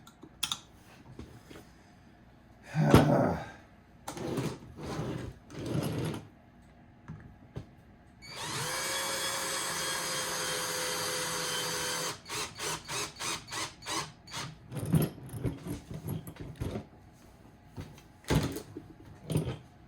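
Cordless power screwdriver running in one steady burst of about four seconds, its pitch rising as it spins up and then holding, followed by a run of quick short trigger blips, working a wedged screw on an RC truck chassis.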